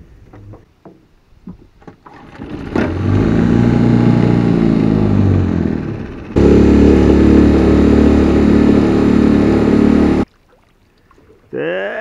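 Suzuki four-stroke outboard motor running: it revs up and back down, then runs louder and steady from about six seconds in, and cuts off abruptly about ten seconds in.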